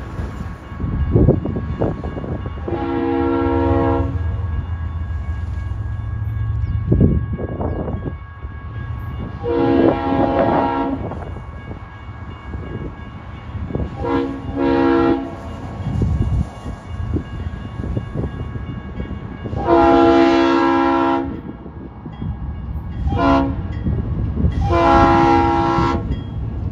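Diesel freight locomotive's multi-chime air horn sounding a series of blasts, long ones with a few short ones between, in the long-long-short-long pattern of a grade crossing warning, over the low rumble of the approaching train.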